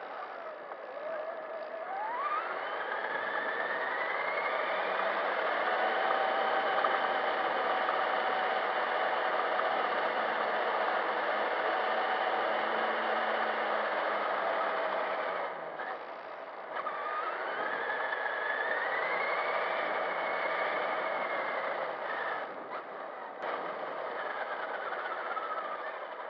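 Electric RC truck's motor and gears whining, picked up by a camera riding on the truck as it drives over sand. The whine rises in pitch as it speeds up about two seconds in, dips briefly a little past halfway, rises again, and falls away near the end.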